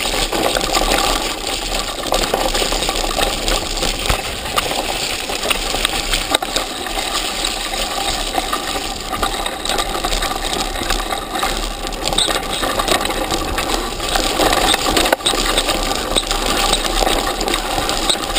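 Continuous clatter and rattle of a mountain bike descending a rough dirt and root trail, heard through a camera mounted on the bike itself, with tyre noise and many small clicks and knocks from the shaking bike.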